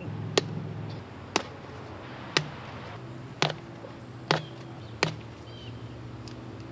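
A series of sharp clicks, about one a second, with a faint low hum underneath.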